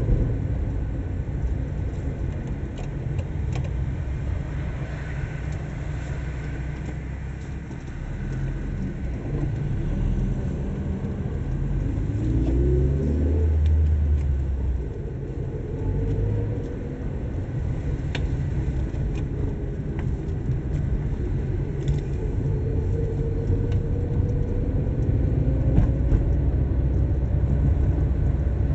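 A car driving through city streets, heard from inside the cabin: a steady low engine and road rumble, with the engine note rising briefly about twelve seconds in.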